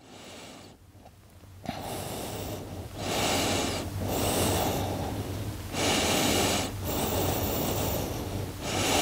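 A woman breathing deeply and audibly, held in a yoga stretch: faint at first, then from about two seconds in a run of about six loud, breathy in- and out-breaths, each a second or two long.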